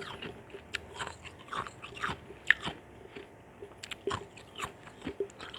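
Ice chunks being bitten and crunched between the teeth, close to the microphone: a run of irregular sharp cracks and crunches, the loudest about two and a half seconds in.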